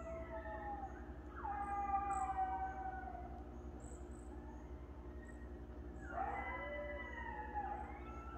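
A group of coyotes howling: several overlapping calls that slide down in pitch, easing off for a few seconds in the middle before starting up again.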